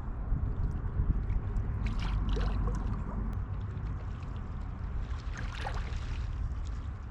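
River water splashing and rushing, with two louder splashes about two seconds and six seconds in, over a steady low rumble.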